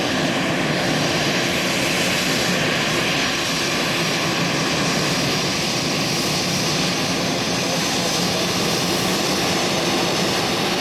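Turbofan engines of a twin-jet airliner running at low taxiing power, a steady roar and whine heard close up as the plane rolls slowly past.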